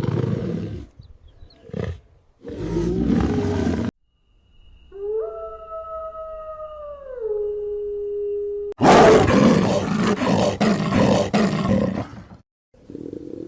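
A series of large wild animals' roars and growls: two harsh roars early on, then a long, steady pitched call that drops slightly in pitch before stopping, then the loudest roar about nine seconds in, lasting some three seconds, and a shorter one near the end.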